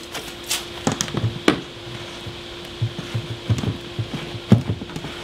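Wooden shutter knocking and rubbing against the house siding as it is pushed into place on its cleats: a few sharp knocks and soft thuds, the loudest about four and a half seconds in. A steady hum runs underneath.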